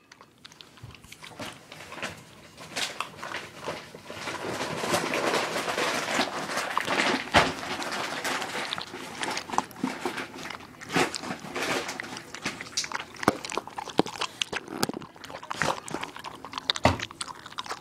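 Puppy crunching and chewing food close to the microphone, a run of irregular crunches and clicks.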